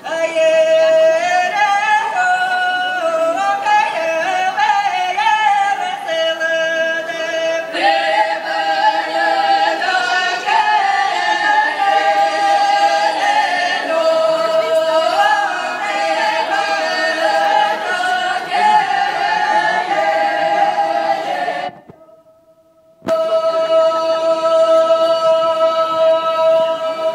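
A group of women singing a Russian folk round-dance (khorovod) song in unison, without accompaniment, in long, held notes with small bends in pitch. The singing breaks off for about a second near the end, then resumes.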